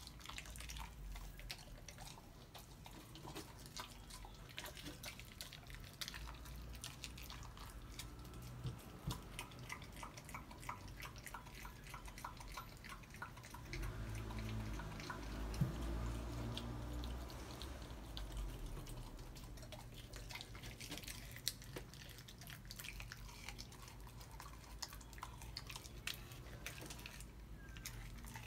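A dog chewing and gnawing frozen raw chicken bones: irregular wet clicks and crunches of teeth on bone and meat. A low rumble swells for a few seconds past the middle.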